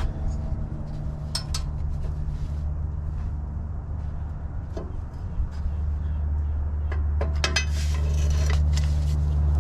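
Socket and wrench clinking and scraping on rusty exhaust manifold bolts, with scattered sharp metal clicks and a busier run of them near the end, over a steady low hum.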